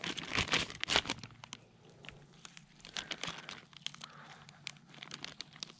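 Plastic zipper-lock bag crinkling as it is held open and raw chicken pieces are pushed into it. The crackling is densest in the first second and a half, then sparser.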